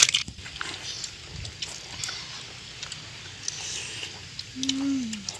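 Boiled crab shell being broken apart and peeled by hand: a sharp crack at the start, then scattered small clicks and crackles of shell. A short low hum falling in pitch near the end.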